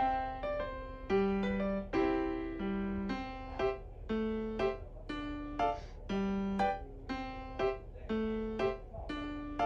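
Background piano music: a light tune of single notes and chords struck at a steady pace of about two a second, each note fading away.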